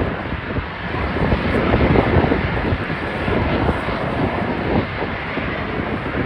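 Loud aircraft engine noise: a rough, steady roar with no clear pitch, swelling slightly about two seconds in.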